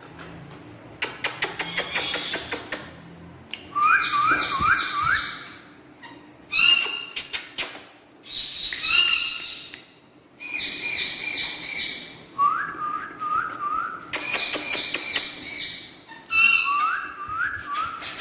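Parrot whistling in runs of three or four short rising notes, repeated several times, with bursts of rapid clicking in between.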